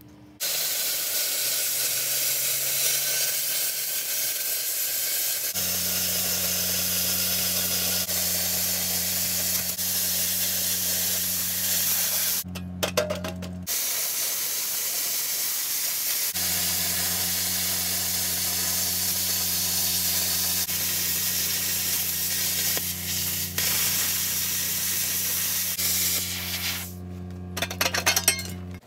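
Plasma cutter cutting into a steel gas bottle: a loud, even hiss of air and arc, with a steady electrical hum from the machine that sets in about five seconds in. The cutting breaks off briefly a couple of times near the middle and stops at the end.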